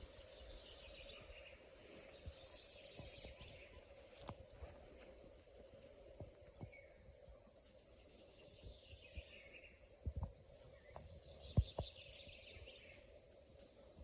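Quiet interior with a steady hiss, sparse footsteps and small knocks; the sharpest knock comes about two-thirds of the way through. A bird sings in the background three times, each time a run of short notes falling in pitch.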